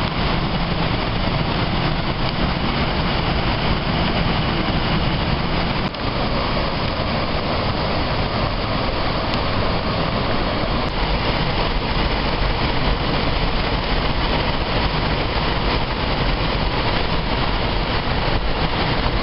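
Waterfall on the River Twiss rushing steadily and loudly, with a brief dip about six seconds in.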